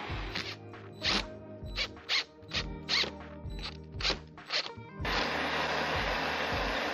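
About ten short rasping strokes, roughly two a second, from a hand tool shaping a sled runner, over background music. About five seconds in the strokes stop and a loud, steady rushing noise takes over.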